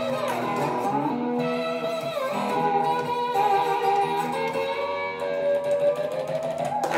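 Chibson Firebird electric guitar (a three-pickup Chinese copy of a Gibson Firebird) played slide in open E tuning: sustained notes and chords with the pitch gliding up and down between them.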